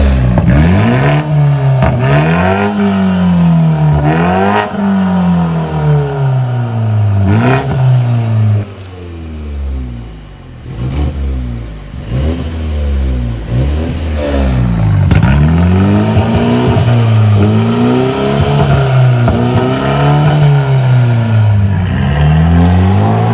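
BMW 5 Series G30's 2.0-litre turbocharged four-cylinder revved repeatedly at a standstill through a freed-up exhaust, its resonator deleted and the exhaust valve open, the pitch climbing and falling every couple of seconds. It eases off around ten seconds in, and there are a few sharp cracks on the overrun.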